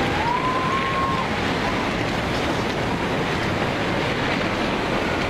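Tsunami floodwater surging through a town, a loud, steady rushing of churning water. A thin wavering tone sounds over it in the first second.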